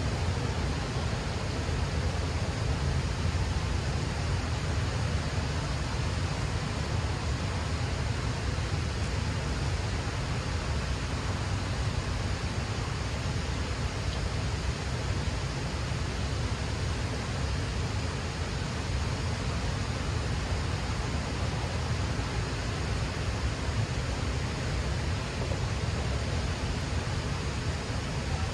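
Steady rushing water below a dam: an even roar, heaviest in the low end, that stays unchanged throughout.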